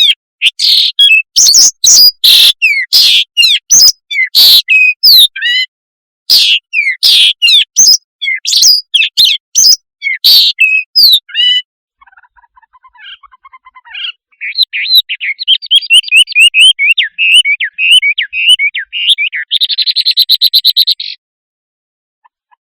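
A shrike calling loudly: a long run of harsh, rasping calls repeated several times a second. About halfway through it changes to a quicker, varied twittering song that ends in a short buzzy rattle, and then stops.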